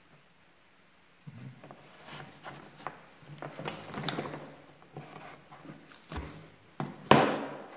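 Plastic hose connector being twisted and pulled out of the inlet port of a Bosch GAS 15 vacuum cleaner's tank: scattered plastic clicks and scrapes starting about a second in, with one louder knock near the end.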